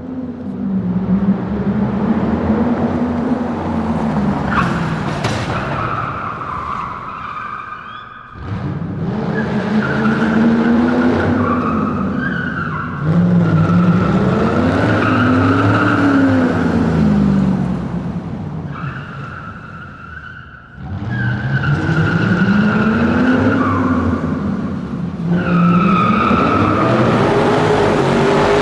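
Car tyres squealing continuously, with the engine revving up and down beneath the squeal. The sound eases off briefly twice and then picks up again.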